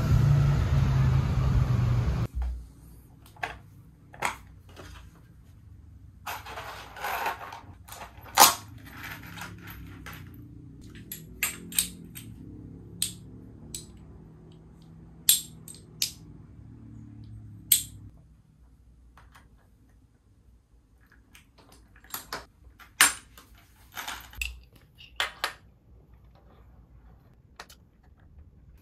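Scattered light clicks and knocks of small metal hardware and a wooden plank being handled and fitted together, with a screw being driven into the wood near the end. The first couple of seconds hold a steady mechanical hum that cuts off abruptly.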